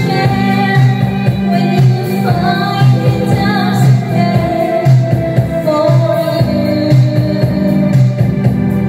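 A woman singing karaoke into a handheld microphone over a backing track, holding one long note about halfway through.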